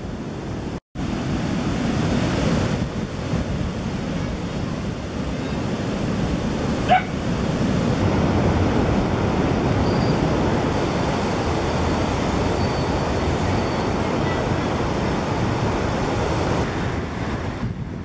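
Steady rush of ocean surf and wind on the microphone, broken by a brief cut-out about a second in. A single short dog bark comes about seven seconds in.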